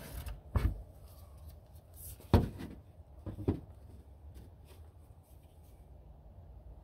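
A few short knocks as an aluminium spirit level is set against a door panel and repositioned, the loudest about two and a half seconds in.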